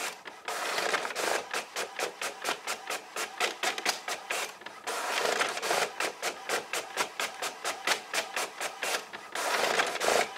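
Inkjet printer printing pages: a rapid, even clicking about five times a second, with a whirring rush three times as each sheet is fed through.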